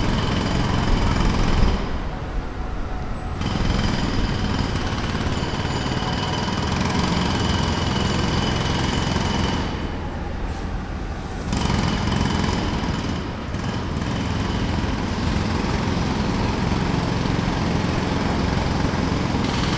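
Jackhammer hammering in rapid strokes, stopping twice for a second or two, about two seconds in and about ten seconds in, then starting again.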